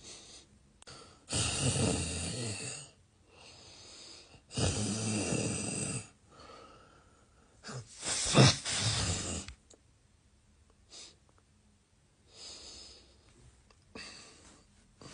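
A man snoring: three loud, long snores about three seconds apart, then only faint short sounds for the rest of the time.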